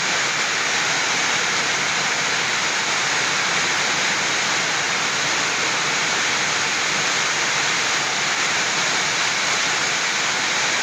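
Heavy storm rain pouring without letup, a steady, even rushing hiss.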